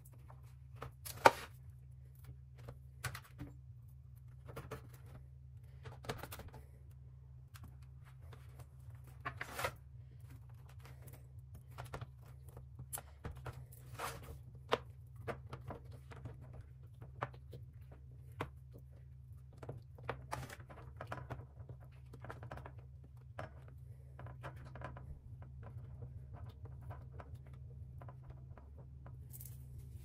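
Hands peeling squares of puff pastry apart and laying them on a silicone baking mat on a metal tray: soft, irregular taps, peeling and rustling, with one sharper knock about a second in, over a steady low hum.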